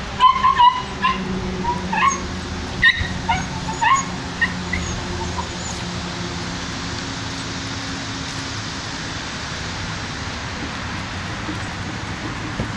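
Dogs whining and yipping in a rapid string of short, high calls, which die away about five seconds in.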